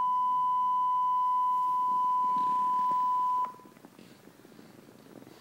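Steady, loud single-pitch test-tone beep of a colour-bars test signal, played through laptop speakers. It cuts off abruptly about three and a half seconds in, leaving faint room noise.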